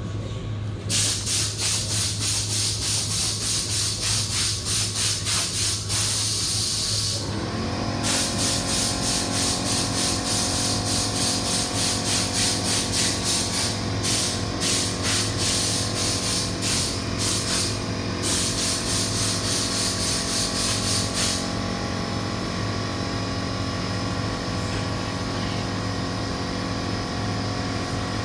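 Paint spray gun hissing in long bursts, pulsing about three times a second, for most of the first twenty seconds, then stopping. A steady low hum runs underneath, and about seven seconds in a motor starts running with a steady drone.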